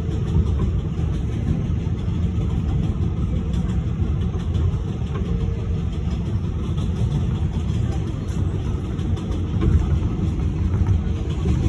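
Steady low rumble of a New York City subway 7 Express train running along the elevated track, heard from inside the car.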